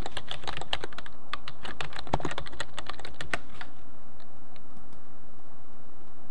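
Fast typing on a computer keyboard for about three and a half seconds, then a few scattered key taps.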